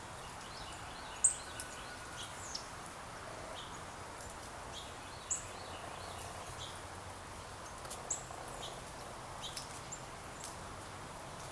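Small birds at a feeder, sparrows and a female northern cardinal among them, giving scattered short, high chirps and chip notes, a few of them louder, over a steady background hiss.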